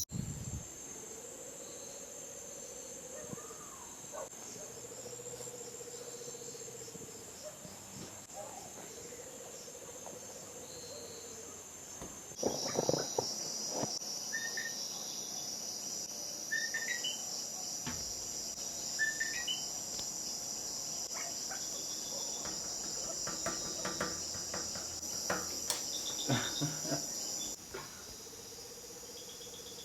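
Night chorus of crickets and other insects, a steady high trill, with short calls from other night animals every few seconds. It grows louder for a stretch in the middle.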